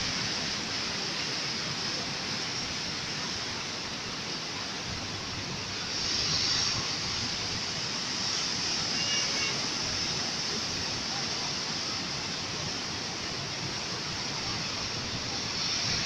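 Sea waves breaking and washing against rocks, a steady rushing surf that swells about six seconds in.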